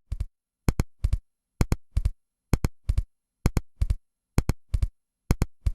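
Artificial heart sounds with both the first and the second sound split: each beat is two quick double clicks, four clicks in all, repeating evenly about every 0.9 s. This splitting of both tones is the auscultation picture of complete left bundle branch block.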